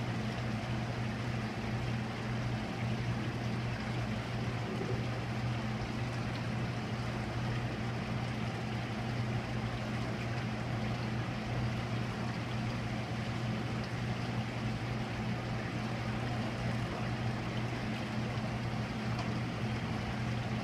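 Steady low hum with a constant rushing hiss, the drone of running aquarium pumps and filtration equipment.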